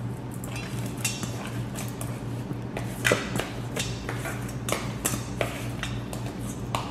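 Hands rubbing seasoning into raw lamb chops in a stainless steel mixing bowl: irregular soft squishes and light clicks of meat and fingers against the metal, the loudest about three seconds in.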